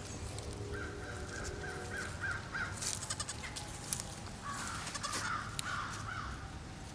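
A bird calling in two runs of short, harsh, repeated calls: one about a second in and a louder one past the four-second mark. A few sharp clicks fall in between.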